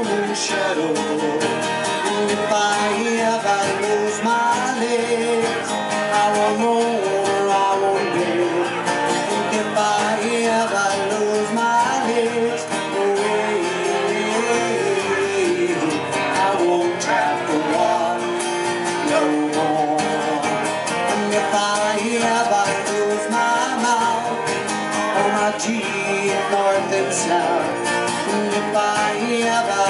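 Two acoustic guitars playing a country-style tune together, strummed and picked, at a steady level throughout.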